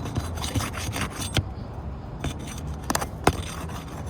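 A tool scraping and prying under a sealed asphalt shingle tab to break the seal, a gritty rubbing with several sharp clicks, the loudest about three seconds in.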